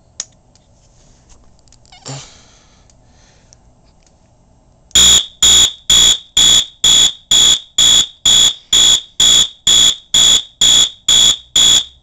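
Wheelock MT multitone fire alarm horn sounding the march-time code: a high-pitched horn tone pulsed evenly about twice a second, starting about five seconds in after a click.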